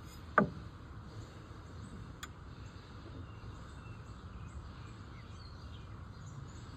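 Outdoor background with faint bird chirps, broken about half a second in by one sharp knock and, a couple of seconds later, a faint click.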